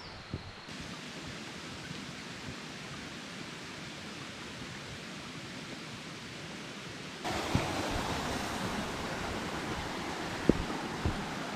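Steady rushing of a mountain stream, growing louder about seven seconds in, with a few footsteps on stony ground near the end.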